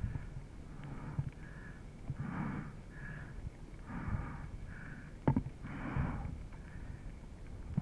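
A rider's heavy, rhythmic breathing close to the microphone, about one breath every two seconds, with a sharp click about five seconds in.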